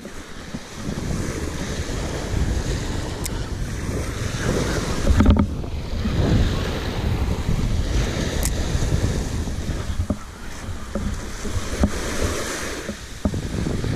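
Small waves washing up and breaking on the beach, the surf swelling and easing, with wind buffeting the microphone. Two faint sharp ticks, about three and eight seconds in.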